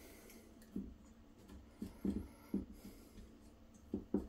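Faint handling noises: a few short, light knocks and rubs as a toothed drive belt is worked into its pulley on a 3D printer's aluminium-extrusion frame.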